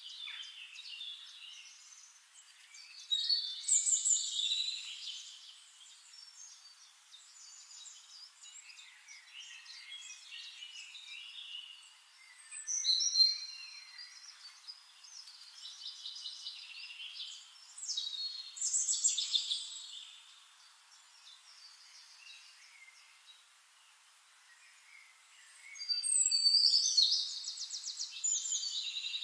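Wild birds singing and chirping in separate bursts of song with short quieter gaps between them, ending in a loud, fast trill.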